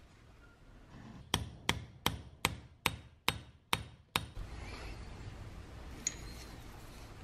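Eight sharp, ringing metal-on-metal taps in a steady rhythm, about two and a half a second, on the steel lead screw and handle assembly of a bench vise. They are followed by quieter handling noise and a small click.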